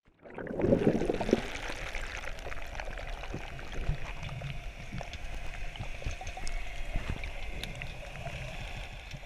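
Water gurgling and bubbling, with scattered small clicks, louder in the first second or so.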